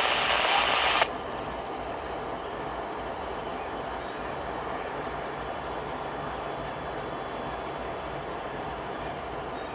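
Approaching EMD diesel locomotive and its train: a steady, distant engine rumble with rail and wheel noise. Near the start a brief voice over a radio is heard, cutting off about a second in.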